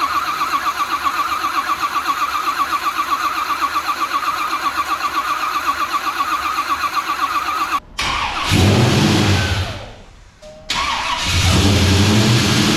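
Freshly installed LS1 V8 being cranked over by the starter on its first start, a steady rhythmic churning for about eight seconds. The sound then cuts off abruptly and the engine is heard running loudly. It fades and cuts out, then runs loudly again near the end.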